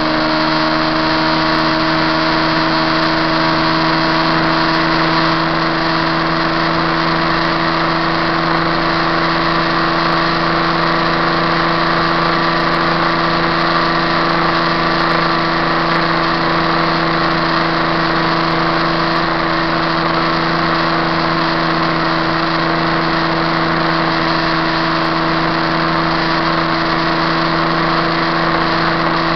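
KTM RC390's 373 cc single-cylinder engine held at steady high revs near top speed, around 180 km/h, with a dense rush of wind noise over it.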